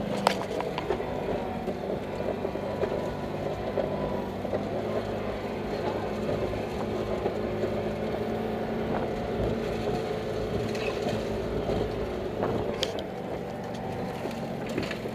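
Car engine running steadily, heard from inside the cabin while driving a rough, rutted dirt track. A few sharp knocks from the car jolting over bumps break through it, one just after the start and one near the end.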